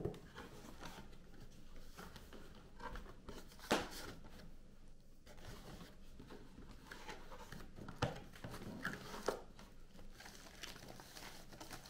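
Cardboard box being opened by hand: flaps and inner packaging rustling and scraping, with a few sharp knocks. A plastic bag crinkles near the end as the wrapped camera is lifted out.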